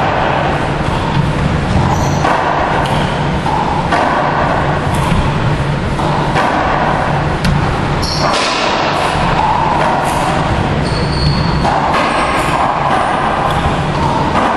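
Racquetball rally in an enclosed court: a string of sharp ball strikes off racquets and walls, each ringing in the hard, echoing room.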